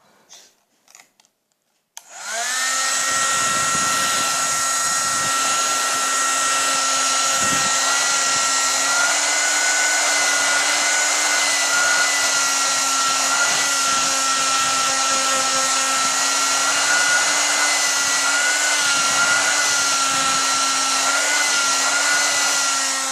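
Handheld hair dryer switched on about two seconds in, spinning up and then running steadily with a blowing rush and a whine.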